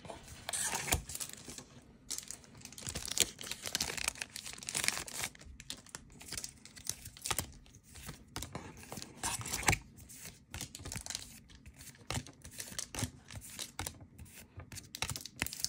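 A foil trading-card booster pack crinkling and tearing open, then the cards being slid and flicked one behind another, giving a steady run of rustles and sharp little clicks.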